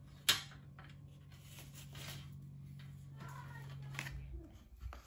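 Light handling clicks and rustles as a steel shelving beam is fitted onto a slotted steel post, with one sharp click just after the start. A low steady hum underneath stops a little over four seconds in.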